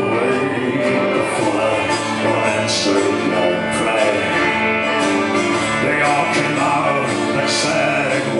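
Live folk-country band playing an instrumental passage of the song, steady and full, with a couple of bright hits near the top.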